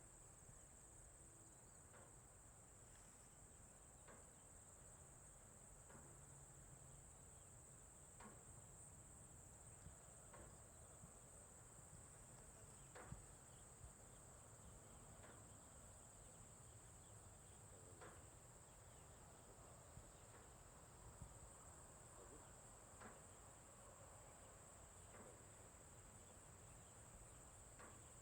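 Quiet outdoor farm ambience: a steady, high-pitched chorus of insects, with faint ticks about every two seconds.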